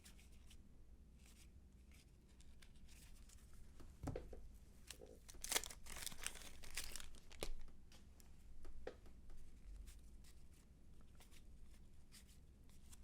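A wax-paper baseball card pack wrapper being torn open and crinkled: a few seconds of tearing and crackling about a third of the way in, with light clicks of cards being handled before and after.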